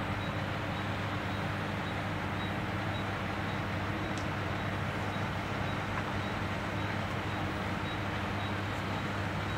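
Diesel engine of an Escorts 23-ton crane running at a steady, unchanging pitch while the crane holds a 15-ton transformer on its hook.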